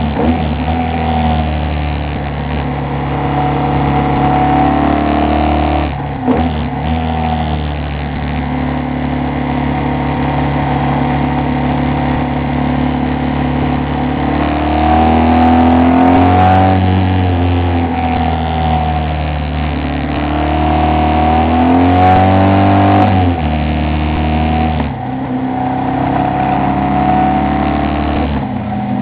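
Moto Guzzi Bellagio's transverse V-twin engine pulling the motorcycle along a winding road, its pitch rising and falling with the throttle. The note breaks off and drops briefly about six seconds in and again near the end, as at gear changes.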